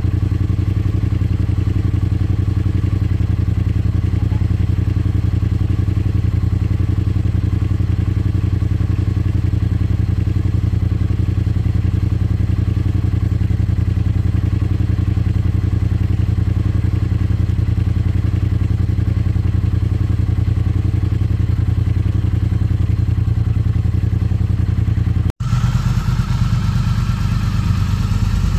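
Motorcycle engine idling steadily, heard close up. About 25 seconds in the sound breaks off for an instant and resumes with a slightly different tone.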